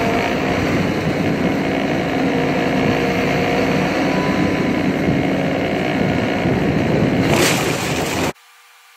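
John Deere combine harvester running steadily, a dense machine drone with a few steady hums through it. About seven and a half seconds in there is a brief loud rush of noise, then the sound cuts off abruptly to a faint hiss with a quiet steady tone.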